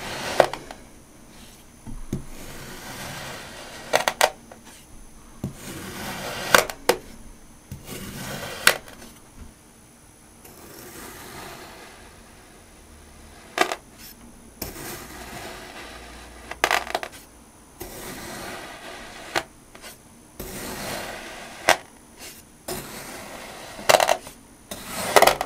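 Knife slicing repeatedly through packed kinetic sand: grainy, crunchy swishes a second or two long, with about nine sharp clicks spread across the strokes.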